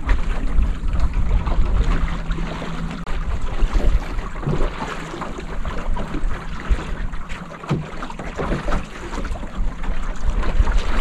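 Wind buffeting the microphone with a steady low rumble, and water slapping and splashing irregularly against the hull of a small wooden sailing canoe beating into gusty wind.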